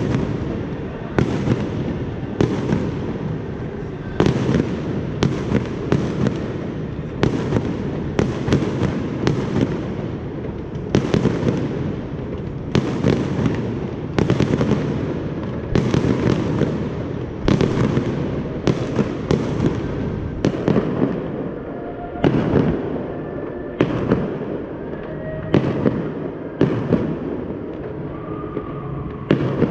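Fireworks display: shells bursting in quick succession, a sharp bang about every second over a continuous rumble.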